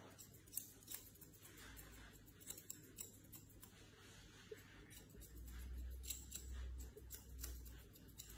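Faint, irregular snips of grooming scissors cutting a Shih Tzu's facial hair, a few soft clicks spread out with pauses between them.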